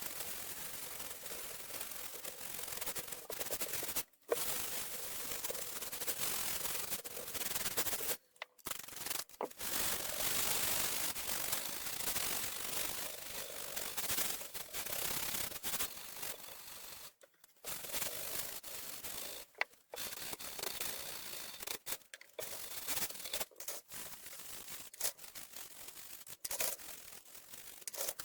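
Keyboard parts being scrubbed and rubbed during cleaning: a scratchy hiss of brushing and wiping that stops abruptly several times.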